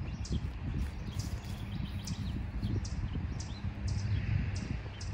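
Birds chirping in short, high calls, about two a second, over a steady low rumble.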